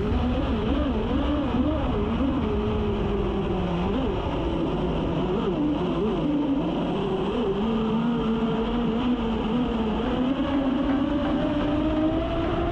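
Onboard sound of a high-speed RC twin-hull catamaran running on a 6S electric power system. The motor whine wavers up and down as the boat bounces over chop, then climbs steadily over the last few seconds as it speeds up, over a constant rush of water and wind.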